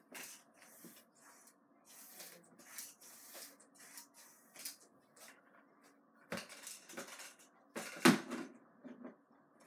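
Scattered light clatter and knocks of dishes and a cupboard as a bowl is fetched, the loudest knocks about six and eight seconds in.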